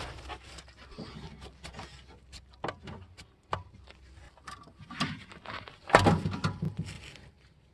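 Irregular clicks, knocks and light rattles of plastic and metal parts and tools being handled while a CRT TV cabinet is taken apart, with a louder burst of clattering knocks about six seconds in.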